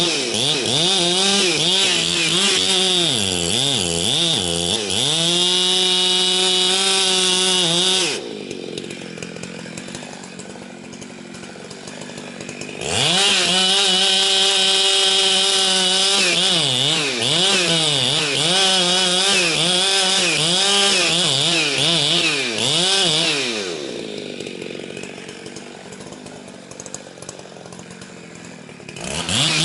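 Husqvarna 365 two-stroke chainsaw cutting wood at high revs, its engine speed wavering as the chain bogs and clears in the cut. Twice it drops back to a quieter idle for a few seconds before being revved back up.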